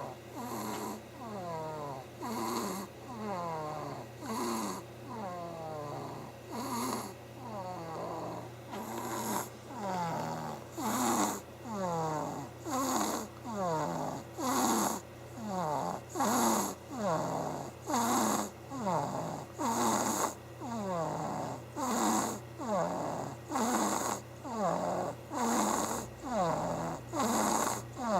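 A sleeping baby snoring, about one breath a second, each breath carrying a squeaky sound that falls in pitch.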